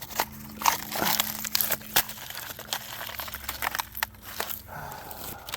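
Irregular crunching and crackling clicks of creek ice as something frozen into it is worked at by hand to break it free.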